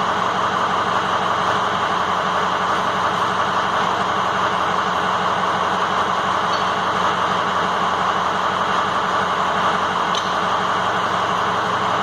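Steady machine drone: an even hiss with a low hum underneath, unchanging throughout.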